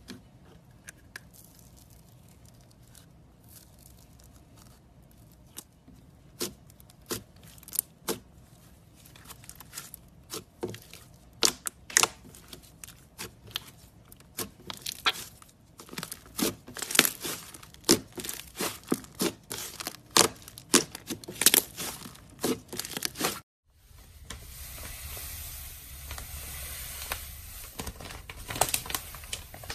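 Slime being stretched, squeezed and pulled apart, giving sharp pops and crackles that come faster and louder as it goes on. After an abrupt cut, a steady hiss with a few more pops follows.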